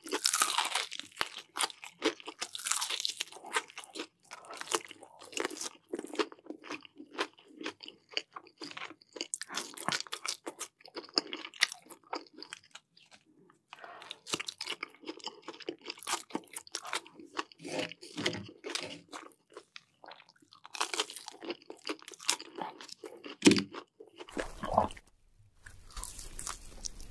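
Close-miked crunching and chewing of crispy fried chicken, with many sharp crackles as the battered crust breaks under each bite. Near the end it changes to quieter biting and chewing of pizza over a low steady hum.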